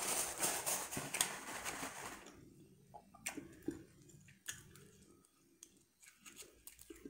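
A paper napkin rustles and crinkles for about two seconds. After that come faint, scattered clicks and wet smacks of fingers picking at boiled seafood and being licked.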